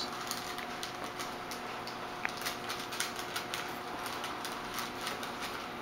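Quiet room tone: a faint steady hum with scattered light ticks and clicks.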